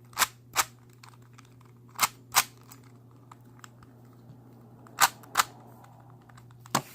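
Sharp plastic clacks from the layers of a DaYan stickerless 3x3 speed cube being turned by hand, mostly in pairs about a third of a second apart, three pairs and then one more click near the end.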